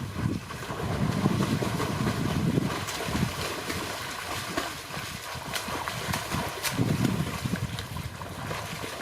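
Wind buffeting the microphone in uneven gusts over a steady outdoor hiss, with a few faint clicks.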